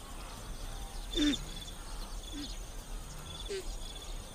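Natural grassland ambience: a steady high insect chirring, with three short animal calls a little over a second apart, the first one, about a second in, the loudest.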